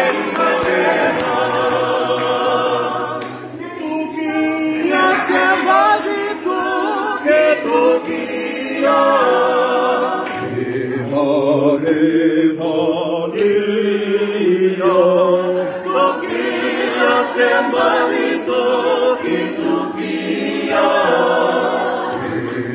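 A group of voices singing together unaccompanied in parts, in long phrases with wavering held notes.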